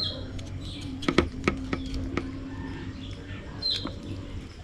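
A kitten's short high squeaks, twice, with several sharp clicks in between.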